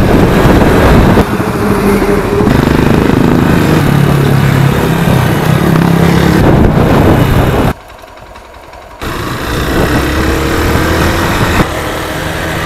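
Motorcycle engine running while riding, under a haze of wind noise. The sound changes abruptly at several points, drops low for about a second past the middle, then comes back with the engine pitch rising near the end.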